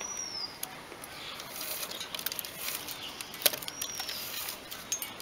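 Blue plastic cord rustling and bamboo strips clicking as the cord is threaded and pulled tight around the bamboo frame of a stool, with one sharp click about three and a half seconds in. A bird gives two short high falling calls, at the start and just before four seconds in.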